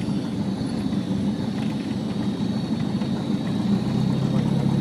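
Steady cabin noise of a single-engine high-wing light aircraft during landing on the runway: the propeller engine runs at low power under the rush of air. A steady low engine hum grows a little louder near the end.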